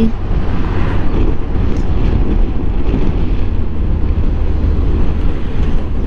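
Suzuki Bandit motorcycle riding along at a steady pace: an even engine drone mixed with wind and road noise.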